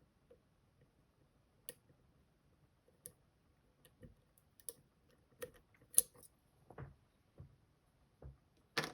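Irregular faint metallic clicks and ticks of a finger-pin lock pick working the spring-loaded sliders and mushroom-pin stacks inside an M&C Color+ dimple lock cylinder, with the sharpest click about six seconds in.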